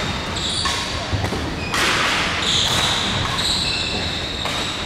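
Court shoes squeaking on the sports-hall floor: several drawn-out high squeaks, the longest lasting about two seconds past the middle, over the echoing background noise of a large hall.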